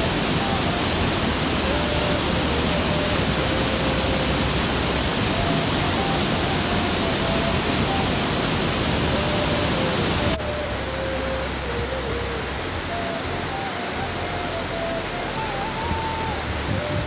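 Waterfall and rushing mountain-river water, a steady, even rush with no breaks. It drops a little in level about ten seconds in, when the picture cuts to a second, smaller cascade.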